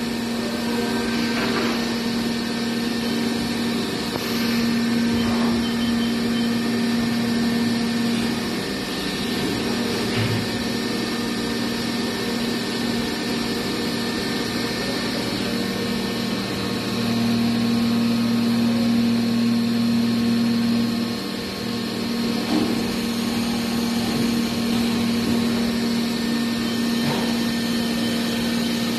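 Mikron VCE 500 vertical machining centre running: a steady electric hum with a constant whine. A low tone swells for about four seconds twice.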